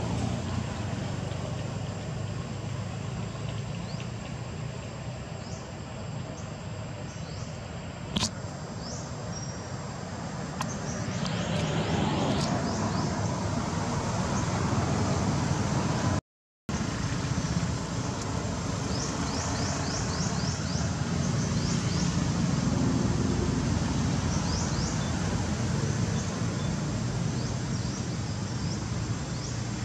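Steady low outdoor rumble with faint, rapid high chirps, a single sharp click about eight seconds in, and a brief dropout midway where the sound cuts out entirely.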